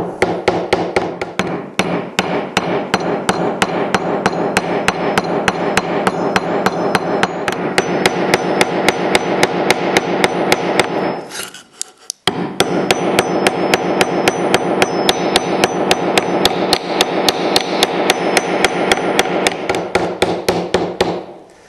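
Rapid, even hammer blows on the end of a Japanese chisel's wooden handle, peening the end grain over its steel hoop into a mushroom head; the strikes ring slightly and stop briefly about halfway through.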